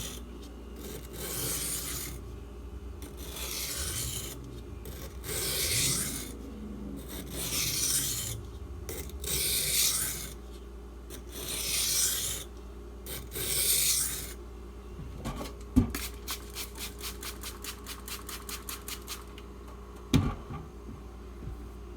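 Knife blade (a Spyderco Salt in H1 steel) stroked across a soaked water stone, a slow gritty rasp about every two seconds, the back-and-forth passes for breaking off the burr. After the strokes come a sharp knock, a quick run of light ticks, and another knock.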